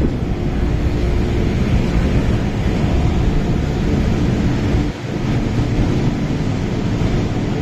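MTR Kwun Tong Line M-Train running, a loud, steady rumble with a low hum, dipping briefly about five seconds in.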